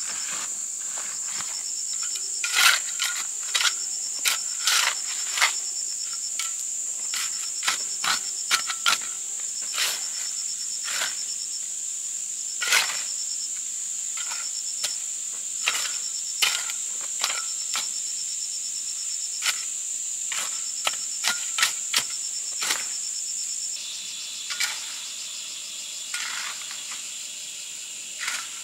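Metal shovel scraping and chopping into a pile of gravel and cement powder, dry-mixing it by hand: irregular sharp scrapes and strikes, roughly one or two a second, that are the loudest sounds. Under them runs a steady high drone of crickets and other insects. The shovel strikes thin out in the last few seconds.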